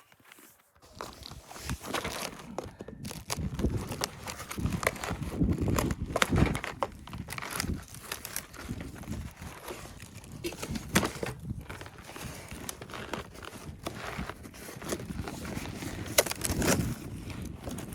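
Irregular crunching and rustling with scattered sharp knocks, coming and going throughout.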